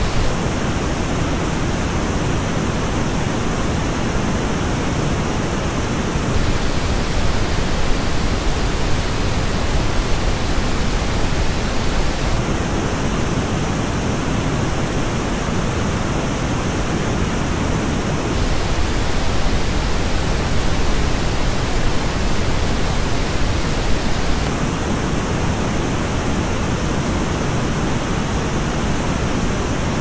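Steady pink noise test signal, switching about every six seconds between the flat original reference and the same noise reproduced through Sennheiser HD 660 S2 headphones. The headphone version has a marked dip around 4–5 kHz and uneven upper treble.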